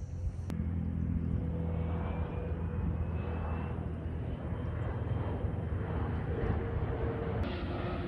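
A distant engine droning steadily: a low hum with a faint higher tone riding over it.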